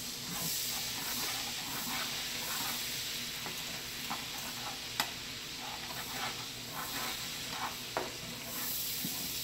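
Lemon-garlic butter sauce sizzling in a hot skillet while a slotted spatula stirs and scrapes through it, with a sharp click about halfway through and another near the end.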